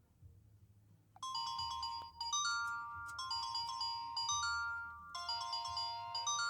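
Palm Treo 600 smartphone playing a polyphonic ringtone through its speaker. A melody with several notes sounding at once starts about a second in and repeats a short phrase, with brief breaks between repeats.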